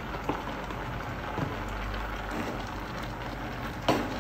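Pot of beans and plantain simmering on a gas hob while a silicone spatula stirs the plantain chunks through the sauce, with a steady hiss of bubbling and flame. A few soft knocks of the stirring, and one sharper knock near the end.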